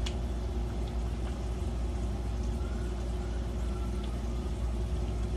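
Potatoes frying in a pan on the stove, a steady sizzle over a low hum, with a few light clicks of a spoon against a pie dish.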